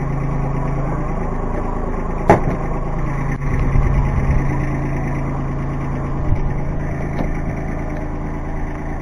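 Kubota B2320 compact tractor's three-cylinder diesel engine running steadily at idle, with one sharp knock about two seconds in.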